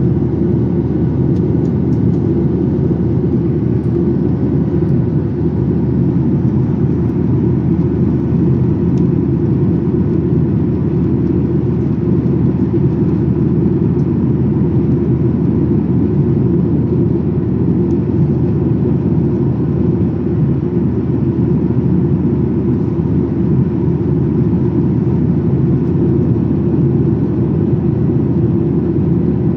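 Boeing 737-800 cabin noise in flight: the steady, low rush of the CFM56-7B engines and airflow past the fuselage, with faint steady tones above it.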